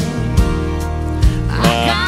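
Country song on the soundtrack: acoustic guitar and bass over a slow, steady drum beat, with the melody line coming back in near the end.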